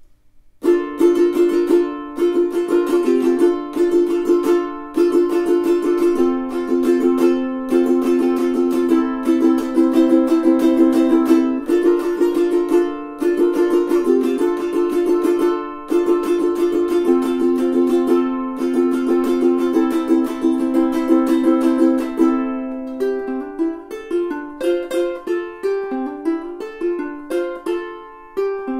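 Enya EUT-M6 all-solid mahogany tenor ukulele strummed in rhythmic chords, changing in the last quarter or so to picked single notes.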